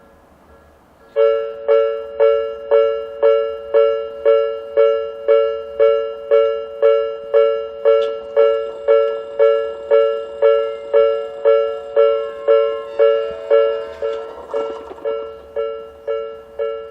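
Japanese railway level-crossing warning alarm, which the uploader guesses is the 'Hakone type', starting suddenly about a second in. It rings a steady two-pitch ding about twice a second, each ding fading before the next, signalling that a train is approaching.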